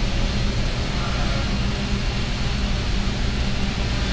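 Electric quadcopter's rotors running steadily as it hovers and climbs, a constant hum made of several steady low tones over an even rushing noise.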